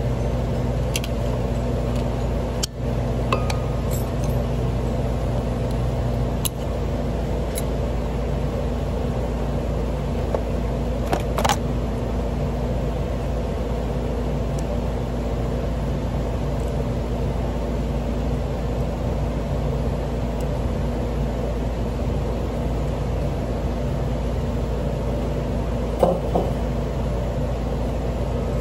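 Steady hum of a wire-coiling machine running in a workshop, with a few sharp metallic clicks and knocks scattered through it, the loudest near the end.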